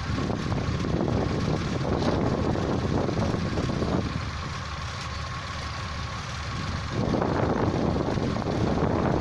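Hino diesel engine of a John Deere rice harvester running, swelling louder over the first four seconds and again from about seven seconds in, with a quieter stretch between.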